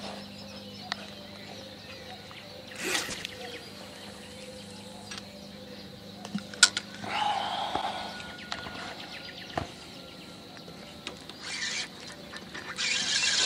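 Feeder fishing tackle being cast: a brief swish about three seconds in, a sharp click a few seconds later, and a longer rushing noise near the end as the rod is cast.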